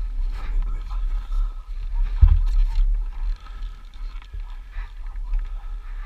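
Heavy wind rumble on the microphone of a dirt bike riding in snow, with the engine faintly heard beneath it. A single dull thud comes about two seconds in.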